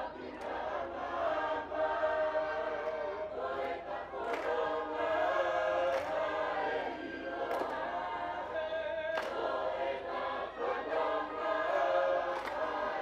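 Tongan lakalaka sung by a choir of many voices, holding long sung lines, with a short sharp stroke every second or two.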